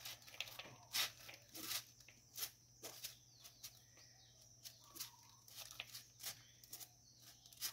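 Wet coffee beans scraped by hand out of a wire-mesh strainer and dropping into a plastic bowl: faint, irregular clicks and rustles.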